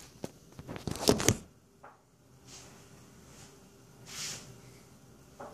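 Phone handling noise as it is set in place: a run of clicks, knocks and fabric rustle in the first second and a half, loudest about a second in. Then two short soft hisses, the second, about four seconds in, the louder, and a light knock near the end.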